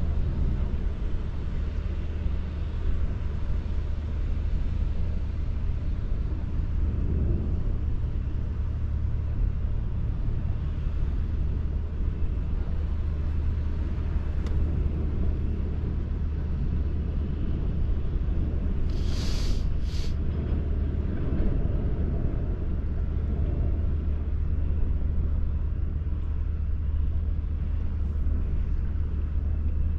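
A steady low rumble, like distant engines or machinery, runs under a haze of noise. Two short sharp hisses come close together about two-thirds of the way through.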